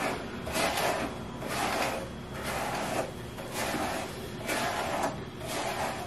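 Plastic-bristled Wet Brush detangling brush pulled through long wet hair in uneven strokes, a swishing rasp about one or two times a second.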